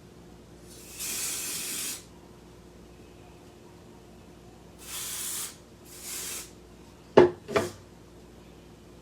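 Lace front spray hissing onto hair in three bursts: a long one of about a second, then two short ones close together. Two sharp knocks follow near the end.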